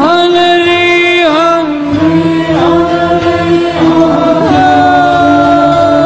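Music from an Iranian song: a long held melody line that slides down and back up between notes, over a low accompaniment.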